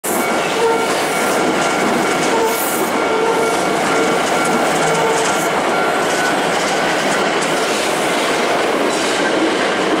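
Osaka Metro 66 series commuter train passing at close range: a loud, steady rumble and clatter of its wheels on the rails.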